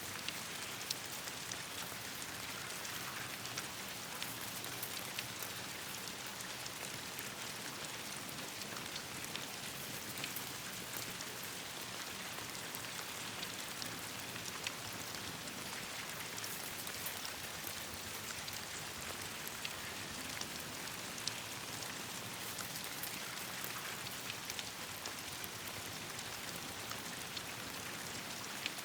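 Steady rain falling, an even hiss with many small sharp ticks scattered through it.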